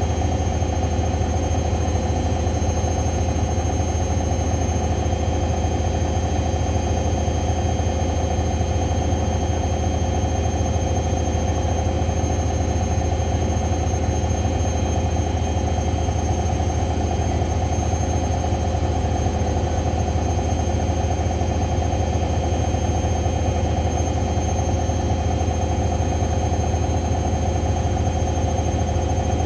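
Hoover washing machine on its spin cycle, the drum spinning at a steady speed with a constant low hum and a steady whine above it.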